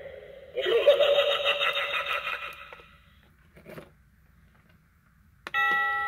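Battery-powered Halloween eyeball doorbell playing through its small speaker: a dense, distorted spooky sound effect for about two seconds, then quiet. About five and a half seconds in, a click and an electronic doorbell chime starts ringing.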